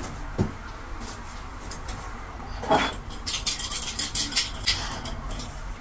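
Kitchen clatter: a knock about three seconds in, then a quick run of light clicks and rattles of utensils being handled.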